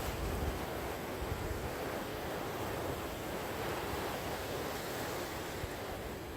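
Gentle ocean waves washing on the shore, a steady rushing surf with no distinct breaks, and some wind on the microphone.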